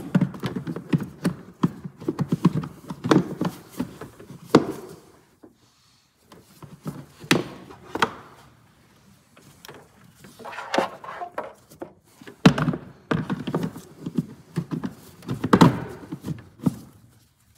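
Hard plastic engine-bay trim being handled and pressed into place: an irregular run of knocks, clicks and scrapes, with a brief pause about six seconds in.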